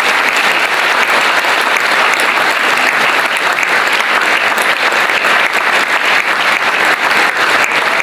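Large audience applauding, a dense, steady clapping with no let-up.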